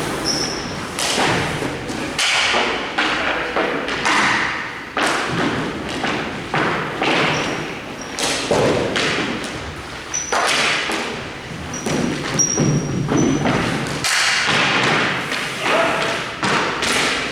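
Irregular thuds and knocks of a ball hockey game: sticks and the ball striking, in a large room, with a few short high squeaks.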